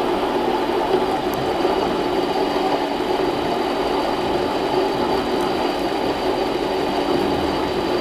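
Harbor Freight mini lathe running steadily, its motor and gears giving a continuous mechanical hum, during a hand-fed turning pass on a shaft.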